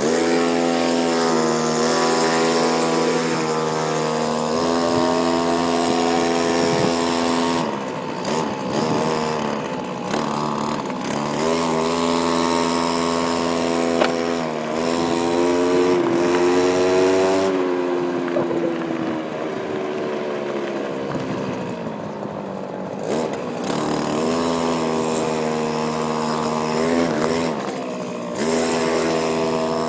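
Go-Ped gas scooter's small two-stroke engine running under way, its revs climbing and falling back several times as the throttle is opened and eased off.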